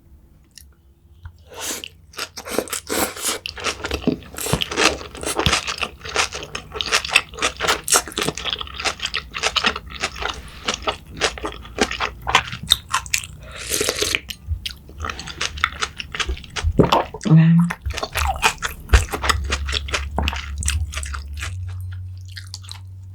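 Close-miked crunching and chewing of crisp food, a dense run of irregular crackles and bites that begins about a second and a half in and dies away near the end.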